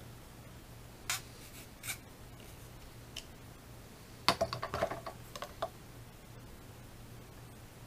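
Two or three short scraping strokes of a metal needle file on a plastic model part. About four seconds in comes a quick cluster of clicks and taps as a tool is set down on the cutting mat and another is handled. A low steady hum runs underneath.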